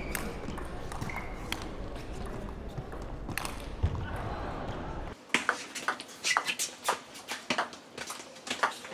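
Table tennis rally: the ball clicking sharply off bats and table in a quick, irregular series, sparse at first over a low hum, then denser from about five seconds in.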